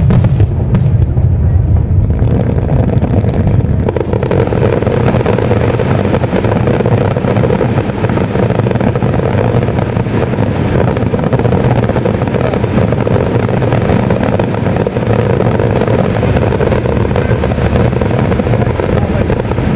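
Fireworks display at full barrage: many shells bursting together in a dense, continuous crackle over a deep rumble. The crackle thickens about four seconds in.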